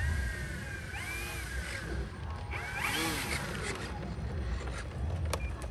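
Digital servos on an RC plane whining in short pitch glides as the control surfaces are moved, over a low rumble of wind on the microphone, with a couple of sharp clicks near the end.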